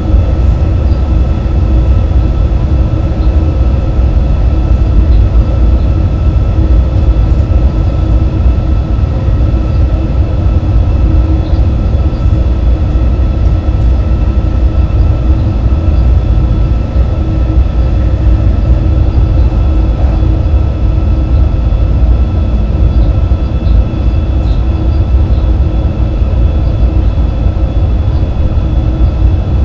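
Cab noise of a Bombardier TRAXX E186 electric locomotive running at high speed: a loud, steady rumble with a few faint, steady whining tones above it.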